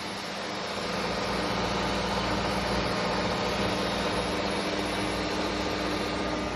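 Beko WM5120 washing machine running: a steady motor hum over a noisy whir that grows a little louder about a second in, then holds steady.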